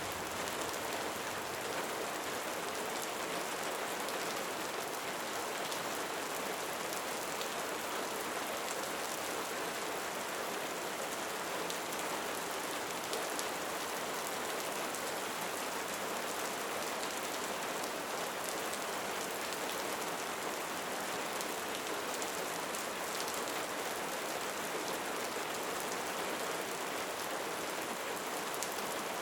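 Steady rain falling: an even hiss that holds without change.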